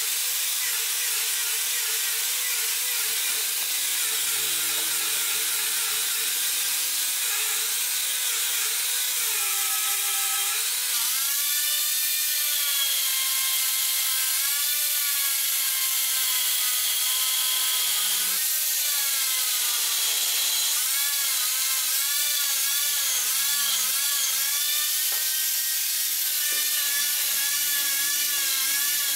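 Angle grinder with an abrasive disc sanding and shaping a curved wooden railing piece: a steady grinding rasp over the motor's whine, which rises and falls as the disc is pressed into and eased off the wood.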